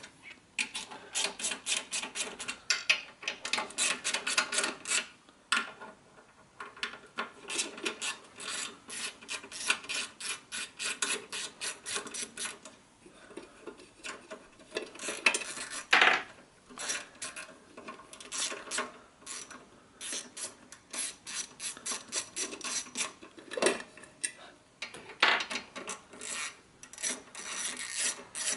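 Socket ratchet clicking as the rocker cover bolts on a Honda GX engine are undone, in quick runs of clicks with short pauses between.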